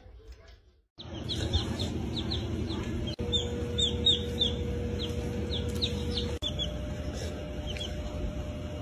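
Baby chicks peeping: many short, high, downward-falling peeps in quick irregular runs, starting about a second in. A steady low rumble runs underneath.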